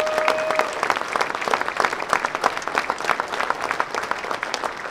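Audience applauding, dense clapping that eases off toward the end, with a held cheer from the crowd in the first second.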